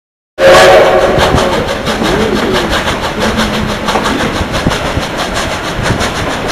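Coal-fired narrow-gauge steam train running, heard from an open passenger car: a steady clatter of wheels over the rails. It starts abruptly about half a second in.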